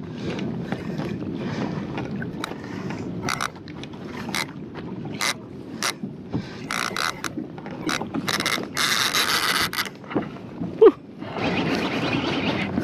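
Fishing reel cranked against a hooked Chinook salmon, with clicking from the reel's gears and drag. Twice the drag gives out a steady buzz as the fish pulls line off, the second time from near the end as the fish starts a run. A brief loud squeak comes just before that second buzz.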